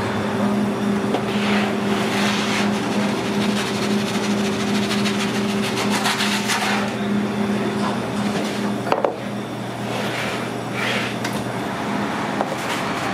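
Steady mechanical hum and rushing noise of commercial pizza-kitchen equipment, with scattered clatter. About nine seconds in there is a sharp knock, and one tone of the hum drops out at the same moment.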